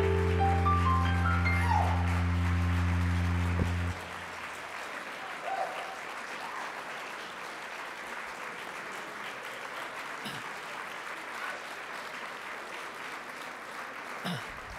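Music with a rising run of notes, cut off abruptly about four seconds in, then steady audience applause.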